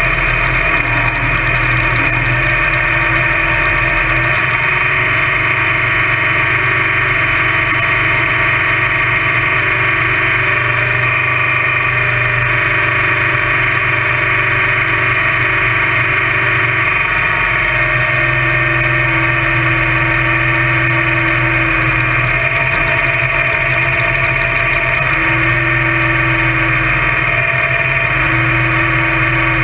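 Top Alcohol Dragster engine idling loudly and steadily, heard close up from a camera mounted on the car, its low note swelling and easing a few times.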